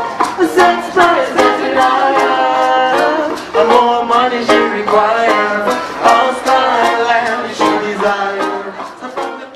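Live band music: a man singing into a microphone over strummed acoustic guitar, the sound fading away near the end.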